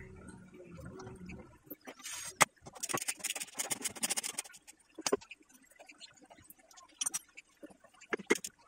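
Socket ratchet wrench clicking in a quick run as a 10 mm bolt on the front shock absorber's lower bracket is tightened. A sharp metal click comes just before the run, and a few single clicks and knocks follow.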